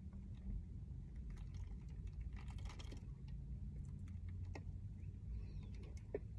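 Faint scattered clicks and a brief soft rustle about two and a half seconds in, from fingers and the tin as a pinch of mint dip is tucked into the lip, over a low steady hum.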